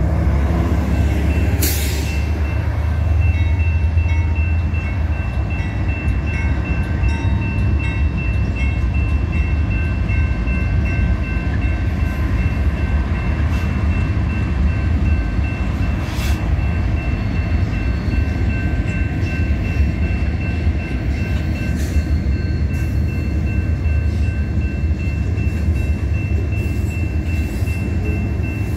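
Freight train rolling through a road crossing: a steady low rumble of diesel locomotives and then loaded covered hopper cars passing, with occasional sharp clicks from the wheels and the crossing bell ringing.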